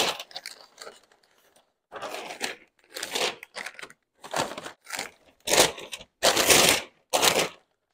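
Pink butcher paper crinkling and rustling in irregular bursts as it is folded tightly around a brisket. The handling is loudest in the second half.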